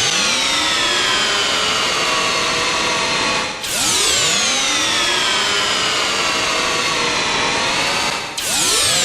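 Sci-fi sound effect made from a processed vacuum cleaner motor recording: a dense electronic hum in which many tones slide down from high and up from low before settling into a steady chord. It restarts sharply twice, about three and a half and eight and a half seconds in.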